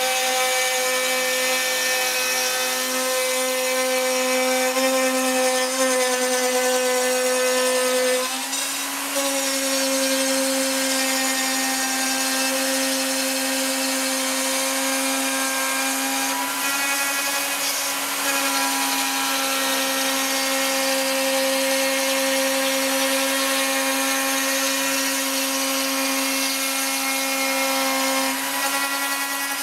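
Spindle of a Cybermation Autograph Multicutter 8000 CNC router running with a steady high-pitched whine. The whine dips briefly about eight seconds in and again near eighteen seconds, then settles back.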